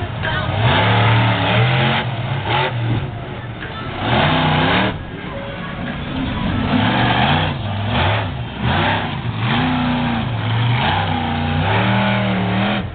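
Bigfoot Bessie monster truck's engine revving hard, its pitch rising and falling about seven times as the truck drives around the track.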